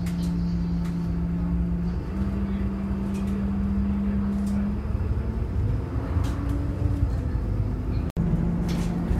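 City bus engine and drivetrain heard from inside the cabin while the bus drives off, a steady hum with low rumble whose pitch steps up about two seconds in and shifts again around five seconds in, with light rattles. The sound cuts out for a moment near the end.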